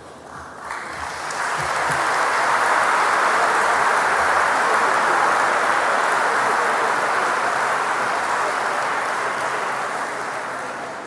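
Audience applauding, swelling up about a second in, holding steady, then dying away near the end.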